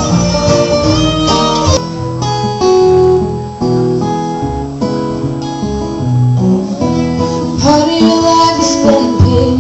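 Live acoustic bluegrass string band playing, with strummed acoustic guitar prominent under long held melody notes and a bass line.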